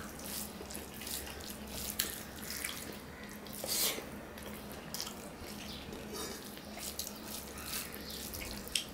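Hand-eating sounds: fingers squishing and mixing rice with curry on a plate and wet chewing, a scatter of soft irregular clicks and smacks over a steady low hum.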